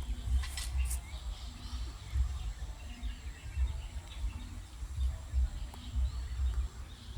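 Faint, scattered high chirping of small wild animals over a low, uneven rumble, which is the loudest sound.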